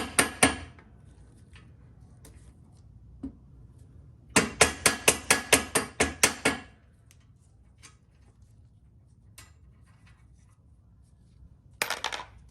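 A mallet tapping the rear axle bolt into a Suzuki Boulevard C50's rear wheel: quick, evenly spaced metallic knocks at about five a second. A short run ends just after the start, a longer run of about a dozen knocks comes from about four seconds in, and a brief burst comes near the end.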